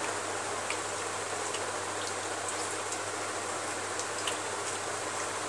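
Steady background hiss with a few faint, scattered clicks from a person eating rice by hand off a steel plate: fingers mixing the food and chewing.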